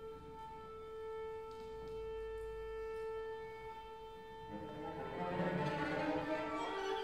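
String quartet playing contemporary chamber music: a long sustained bowed note, joined about four and a half seconds in by the other strings in a denser, shifting cluster of notes that rises near the end.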